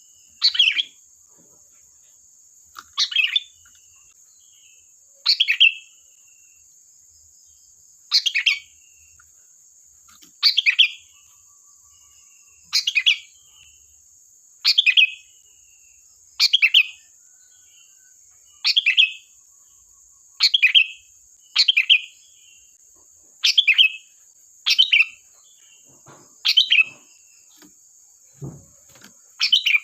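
Sooty-headed bulbul (kutilang) calling: short, sharp phrases repeated every one to two and a half seconds, some fifteen in all.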